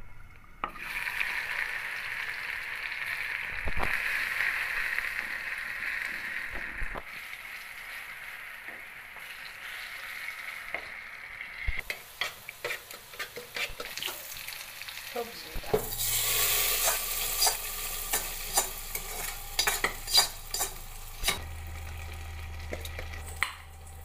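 Hot oil sizzling steadily in a pan, then a spoon stirring and clinking in a pot of vegetables. Then louder frying as slices of food sizzle in oil, with repeated sharp clinks of a spatula against the metal pan.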